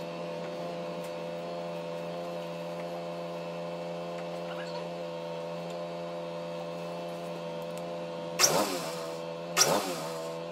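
A steady hum with several even tones. Near the end a DeWalt benchtop thickness planer is switched on and straight off twice, its motor starting with a loud burst and winding down each time: it is being bumped to turn the feed rollers for cleaning.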